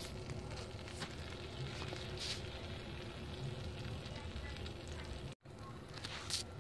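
Melted margarine sizzling steadily in a frying pan under a heap of flour at the start of a roux, over a gas burner. The sound drops out for an instant about five seconds in.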